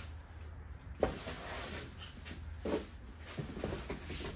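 A welder being lifted out of its cardboard shipping box: packing rustles, a sharp knock about a second in, and a duller knock and a few small taps near three seconds.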